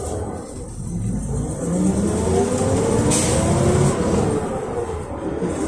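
A PAZ 320540-22 bus's ZMZ-52450A engine, running on LPG, heard from inside the passenger cabin as the bus accelerates, its pitch rising steadily. A hiss comes in about three seconds in, and the engine note dips briefly near the end.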